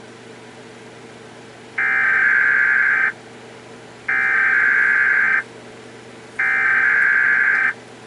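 Emergency Alert System SAME header: three bursts of digital data tones, each a little over a second long and about a second apart, the coded signal that opens an emergency alert broadcast.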